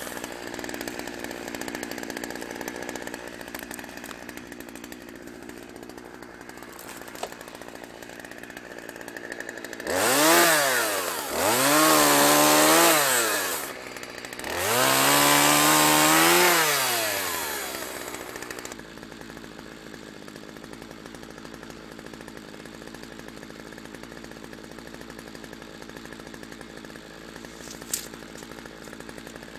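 Two-stroke gas chainsaw idling, then revved up hard three times in quick succession, each rev rising and falling in pitch as it cuts limbs from a fallen tree, before dropping back to a low idle. A single sharp click near the end.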